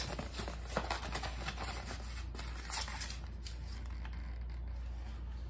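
Light handling noise from an airsoft pistol and its cardboard box being picked up and moved: a few soft clicks and rustles over a steady low hum.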